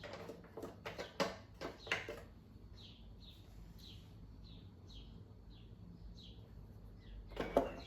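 Sharp clicks and knocks of tools and plastic vacuum-cleaner parts being worked during disassembly, with a run of about ten short, high, falling chirps, roughly two a second, in the middle.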